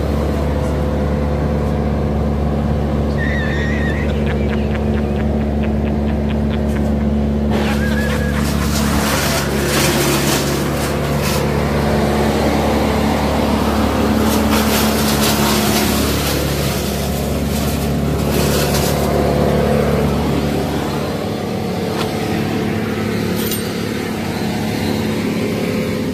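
Police car driving, with a steady engine hum and road noise.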